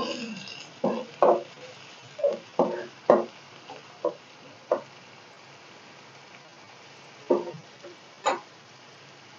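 A metal spoon stirring onion paste frying in oil in a steel kadhai, knocking and scraping against the pan: a quick run of strokes in the first five seconds, a pause, then two more near the end, over a faint sizzle.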